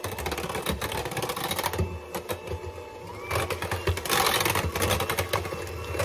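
Electric mixer running, its beaters clattering quickly against the bowl as they beat butter into sweet potato pie filling, a little louder about four seconds in.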